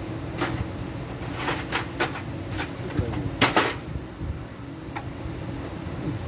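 Irregular sharp clicks and knocks, about eight in all and loudest around the middle, over a steady low hum.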